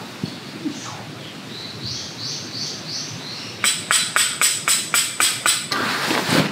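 A small bird sings a short phrase of about five quick repeated high notes. Then comes a rapid run of about eight sharp, ringing metallic strikes, about four a second, a tent peg being hammered in. A rustle of tent fabric follows near the end.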